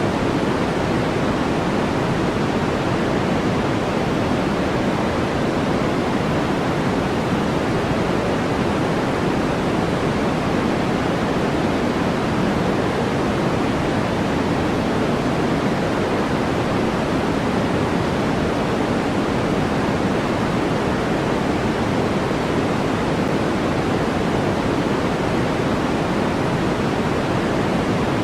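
Steady, unchanging electronically generated noise of the kind sold as white noise for sleep, deeper than a flat hiss: its sound sits mostly in the low and middle range, like pink noise, with a soft rush and no rhythm or breaks.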